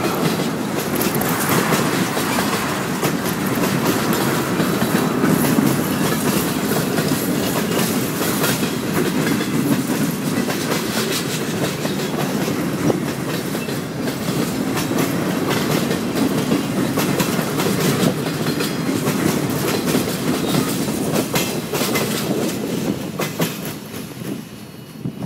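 Freight cars (boxcars and a tank car) rolling past, their wheels clicking steadily over the rails. The noise falls away near the end as the last car passes and moves off.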